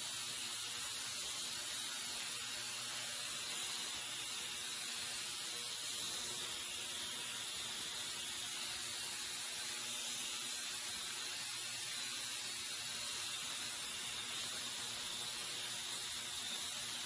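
Design Technology ultrasonic parts cleaner running with a steady high hiss as it cleans carburetor parts in its heated solution.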